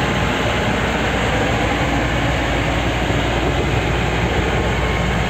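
Steady loud rush of wind and road noise inside an ambulance van's cabin at highway speed, with a low engine drone underneath.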